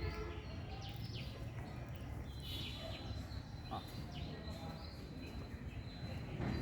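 Steady low outdoor background rumble with scattered short, high chirps.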